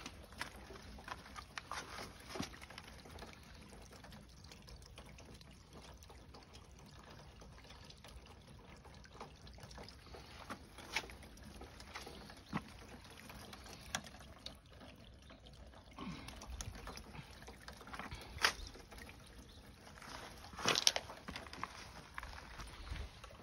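Rainwater runoff trickling along a shallow ditch toward a yard drain: a faint, steady wash of water. Scattered sharp clicks and knocks sound over it, with the loudest cluster near the end.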